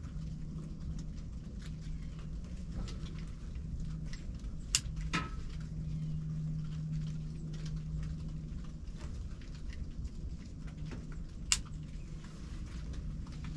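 Quiet hunting-blind ambience: a low steady hum and rumble with faint scattered ticks, and a few sharp clicks about five seconds in and again near the end.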